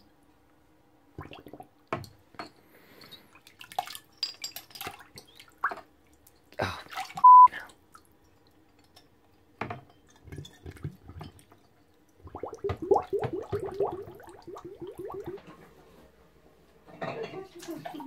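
Glass beer bottles dunked and turned in a plastic tub of sterilising solution: water sloshing, with knocks and clinks of glass against the tub. There is a brief loud high ring about seven seconds in, and a run of gurgling glugs a little after twelve seconds as a bottle fills under the water.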